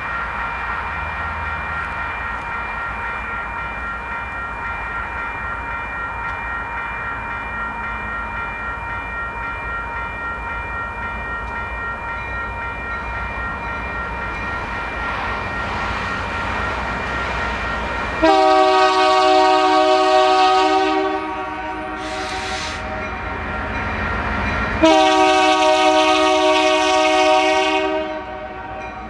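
A railroad crossing's Western Cullen Hayes electronic bell rings steadily at an active crossing signal. About two-thirds of the way in, the approaching locomotive sounds its air horn in two long blasts, with a short, fainter sound between them.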